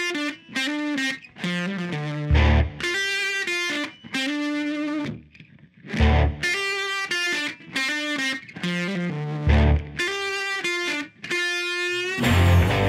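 Background music led by a guitar with a distorted tone, played in short phrases of held chords, with a heavy low note every three to four seconds.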